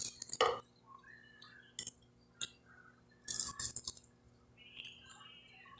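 Quiet eating sounds: a fork clinking a few times against a glass plate and soft mouth clicks as fried fish is picked apart by hand and eaten.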